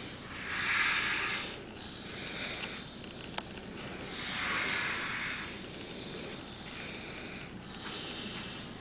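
A sleeping person snoring with airy, hissing breaths: two long ones about four seconds apart, with fainter breaths between. A single sharp click about a third of the way through.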